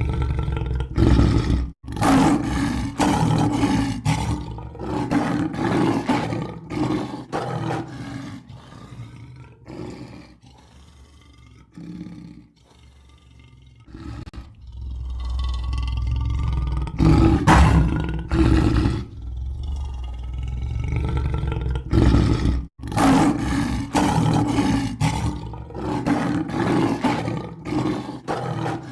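Lion roaring in two long bouts, each a run of deep roars that tails off, with a quieter lull between them.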